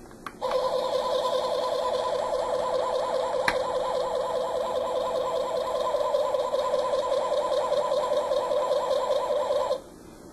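A Star Trek original-series tricorder replica's sound module playing a rapidly warbling electronic tone. It comes on suddenly after a click of the button, runs for about nine seconds and cuts off suddenly.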